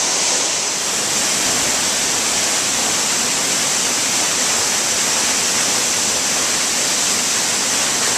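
Spouting Rock waterfall pouring down a cliff face onto rocks: a steady, loud rush of falling water.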